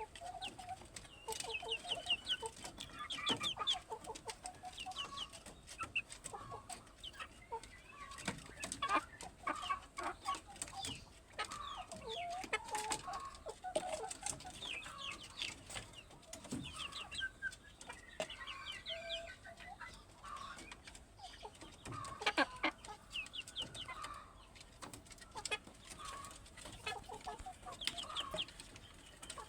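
Kampung chickens clucking, mixed with runs of short high-pitched peeping calls throughout and a few sharp clicks.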